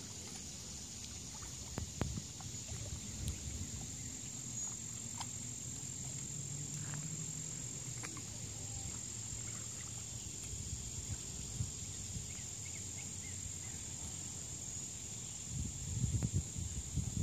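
Lakeside outdoor ambience: a steady high-pitched insect drone with a few faint ticks, over a low rumble on the microphone that gets heavier near the end.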